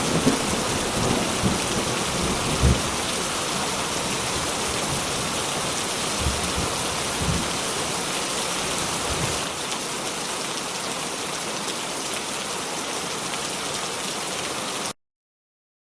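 Steady heavy rain with several short low thunder rumbles in the first ten seconds, the rain dropping a little in level near ten seconds in and then cutting off abruptly about fifteen seconds in.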